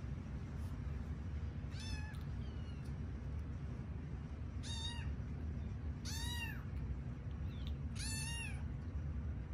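A Siamese kitten meowing four times, short high meows a second or two apart, each rising and then falling in pitch.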